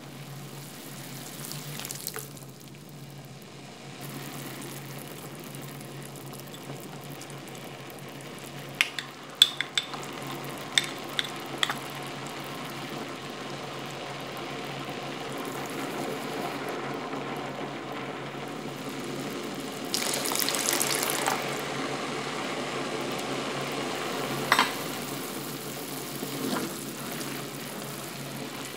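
Minced pork in broth simmering and bubbling steadily in a stainless steel frying pan, over a low steady hum. There are a few sharp pops about ten seconds in and a brief louder rush about twenty seconds in.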